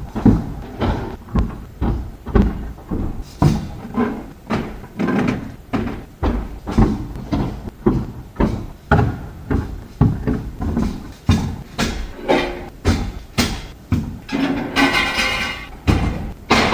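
Steady run of knocks and thumps, about two a second, from loud equipment being worked at a pizza shop, with a short scraping squeal near the end.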